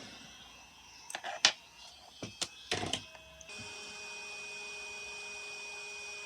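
Several sharp clicks and taps of tools on a microsoldering bench, the loudest about a second and a half in. About halfway through, a steady high electrical whine with a hiss from bench rework equipment starts and holds.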